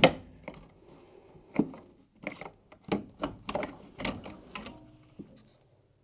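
Plastic condenser fan assembly being worked loose and eased out of a fridge freezer's rear compartment: a quick string of clicks, knocks and rattles, the loudest right at the start, stopping about five and a half seconds in.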